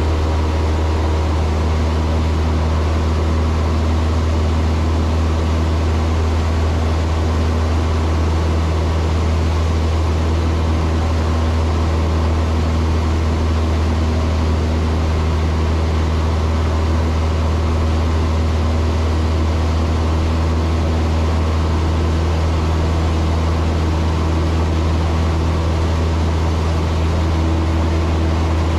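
Cessna 162 Skycatcher's Continental O-200 four-cylinder engine and propeller droning steadily in cruise flight, heard inside the cockpit. The drone is deep and unchanging.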